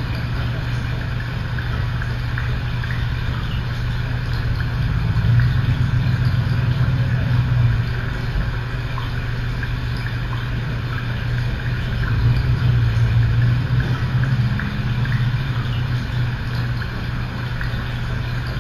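A steady low hum with a constant hiss over it, swelling and easing slightly but never stopping.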